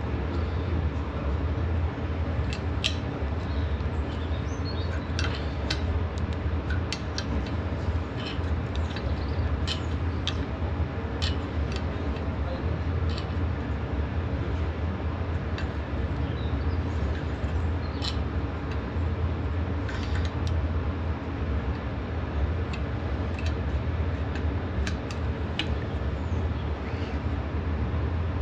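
Small steel wrenches clinking and ticking as a bolt is turned into a Fiat 640 tractor manifold held in a vise. The metal clicks come scattered and irregular over a steady low hum.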